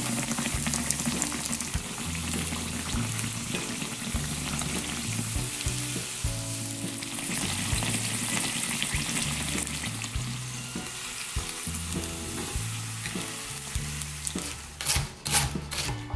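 Breaded pork cutlet deep-frying in hot oil in a pan: a steady, crackling sizzle. Near the end, quick knife strokes shred cabbage on a wooden cutting board.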